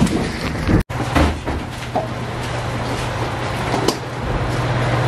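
A train car's sliding door opening after its open button is pressed, then a steady low hum from the stopped train with a few scattered clicks and knocks as passengers step off onto the platform.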